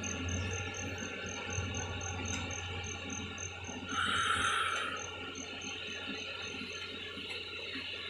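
Construction machinery running steadily with a low hum, and a high-pitched tone pulsing about four times a second throughout. A burst of hiss lasts about a second, about four seconds in.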